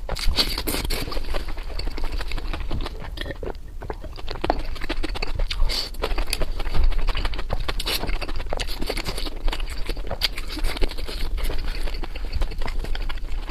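A person eating close to the microphone: chewing with many quick, irregular wet smacking clicks.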